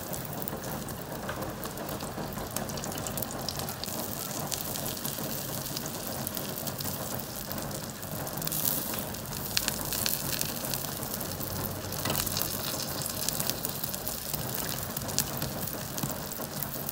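Egg omelette sizzling in hot oil on an iron tawa: a steady frying hiss full of small crackles. A metal spatula scrapes across the pan as the omelette is folded, loudest a little past the middle.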